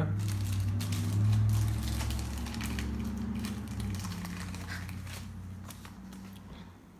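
Baseball card packs being torn open and handled: foil wrappers crinkling and cards clicking against each other, over a low hum that fades away over the first few seconds.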